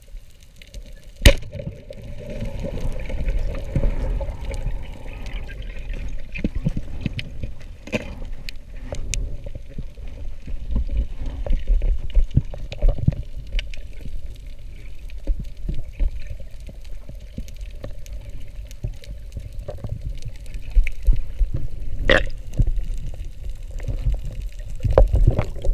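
Underwater sound picked up by a camera in its housing while a spearfisher swims over a reef: a steady low rumble of moving water, with scattered sharp clicks, the loudest about a second in.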